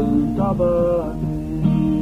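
Background music led by guitar, playing a melody with changing notes.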